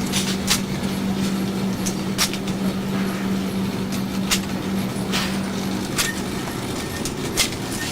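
Steady low hum of an indoor gun range, with about half a dozen faint, sharp gunshot cracks from other lanes scattered through it.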